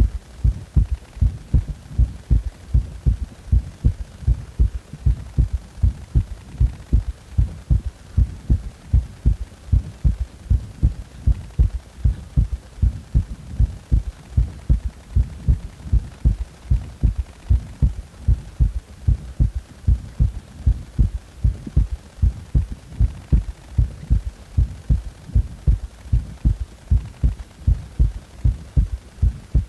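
Human heartbeat with a third heart sound (S3) in each cycle, heard as a steady, regular run of low thuds.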